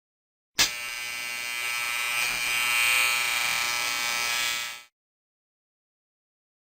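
Electric shaver switched on with a sharp start about half a second in, buzzing steadily for about four seconds, a little louder in the middle, then winding down and stopping.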